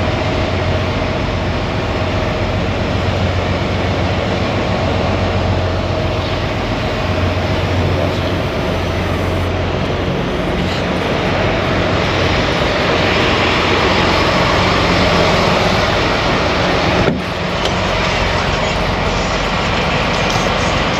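Semi truck's diesel engine idling steadily, with a brief dip in the sound about seventeen seconds in.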